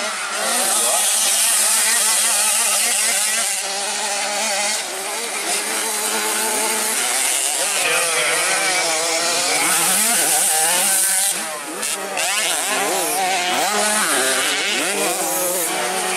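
Several 65cc two-stroke motocross bikes racing, their engines revving up and down over and over as the riders jump and corner, with a high buzzing note.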